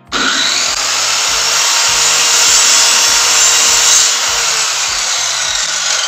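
Ingco 1600 W circular saw running at full speed: a loud, steady whir from the motor and blade that holds unchanged throughout.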